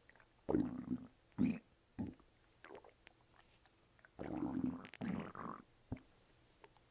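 Stomach and intestines gurgling after a bowel movement: several short, irregular gurgles in the first three seconds, then a longer gurgle lasting over a second about four seconds in.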